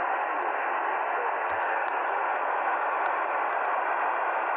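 Shortwave receiver hissing with 40-metre band noise on an open single-sideband voice channel. The hiss is held to a narrow voice band, with a few faint static clicks.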